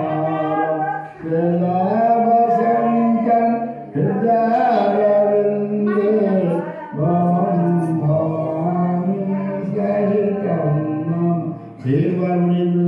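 An elderly man singing a devotional song into a microphone. He sings in long, drawn-out phrases of a few seconds each, separated by brief pauses for breath.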